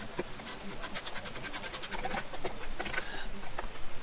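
Hand ratchet with a No. 2 Phillips bit driving a wood screw, its pawl clicking in a rapid, even run of about ten clicks a second for roughly two seconds, then a few scattered clicks.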